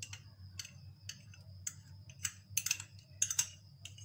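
Metal spoon scraping and clinking against a small glass bowl as thick cream is scraped out: a string of short clinks and scrapes, about two a second, louder in the second half.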